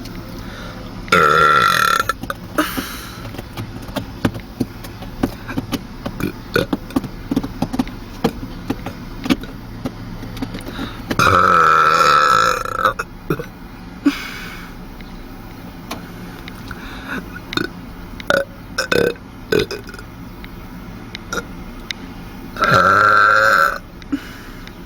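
A teenager burping three times: loud drawn-out belches about a second in, around the middle (the longest, about two seconds), and near the end, with small clicks and knocks between them.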